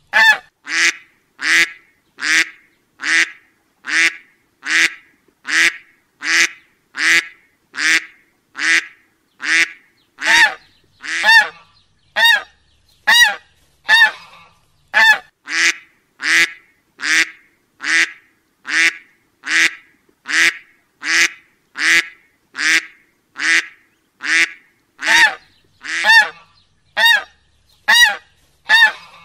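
A duck quacking over and over at an even pace, about three quacks every two seconds, each quack much like the last.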